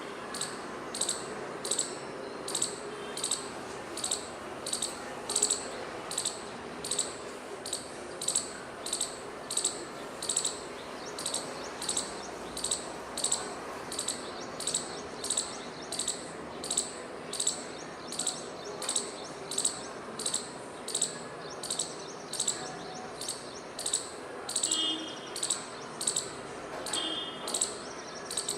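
Squirrel giving a steady series of short, sharp, high alarm chirps, repeating evenly at nearly two a second.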